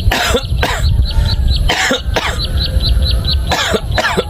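A person coughing: six harsh coughs in three pairs, about a second and a half apart. A steady high ticking of about four a second runs underneath.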